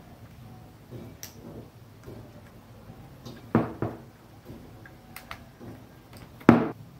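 Hands working wires into the screw terminals of a plug-in relay socket: soft rustling of wire with a few sharp plastic clicks and taps, two near the middle and the loudest near the end.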